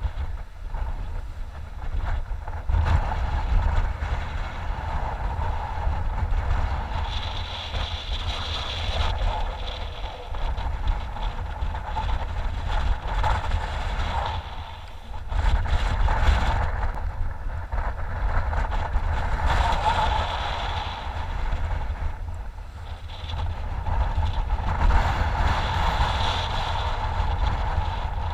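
Wind buffeting the microphone on an exposed sea cliff: a steady low rumble that swells and eases in gusts every few seconds.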